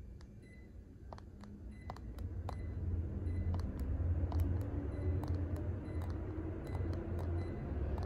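Plastic buttons of a Hitachi air-conditioner remote control clicking about once a second as they are pressed one after another, stepping the off-timer up hour by hour. A low rumble builds up underneath from about two seconds in.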